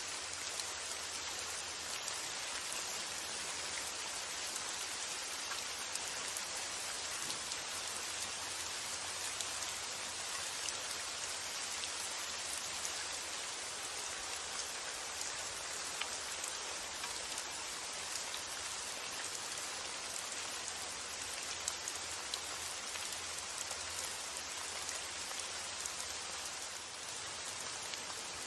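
Steady rainfall, an even hiss with many small drops ticking on surfaces.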